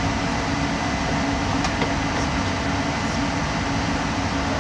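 Steady rushing hum of air conditioning and electronics cooling fans in a drone ground control station, with a faint steady high tone running through it.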